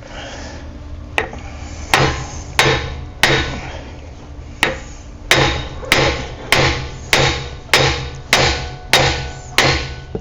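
Hand hammer striking metal about a dozen times, roughly one or two blows a second, each with a short ring: hammering at the Ram 1500's front axle to knock loose the CV axle cup stuck in the axle housing.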